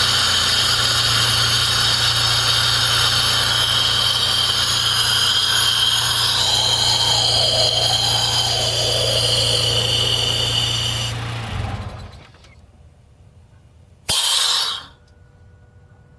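Vehicle running with a steady low hum under a high-pitched whine, a sound the owner suspects comes from a failing fuel pump. It shuts off about twelve seconds in, and a short burst of noise follows about two seconds later.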